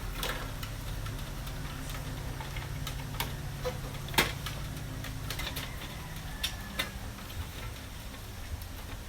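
Scattered small clicks and plastic rattles of PC power-supply cables and connectors being handled as the 24-pin motherboard connector is plugged in, with one sharp click about four seconds in, over a steady low hum.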